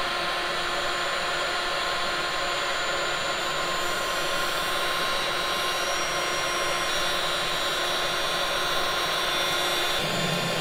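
A Looftlighter electric hot-air fire starter blowing steadily into the kamado grill's charcoal to light it: an even rush of air with a faint motor whine.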